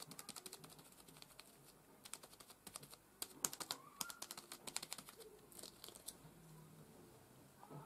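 Faint, rapid clicking and crackling from fingertips pressing and rubbing a thin stencil down onto a card. The clicks come in quick runs and are densest in the middle, and the stencil is lifted away near the end.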